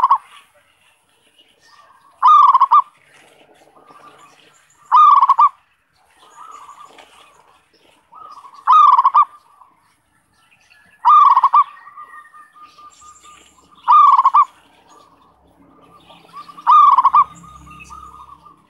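Zebra dove (perkutut) cooing in short, loud call phrases, seven of them about every two to three seconds, with fainter calls in between: the dove song played as a lure to draw in wild perkutut.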